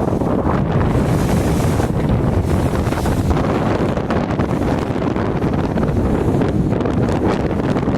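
Wind buffeting the microphone over the steady low rumble of a river car ferry under way.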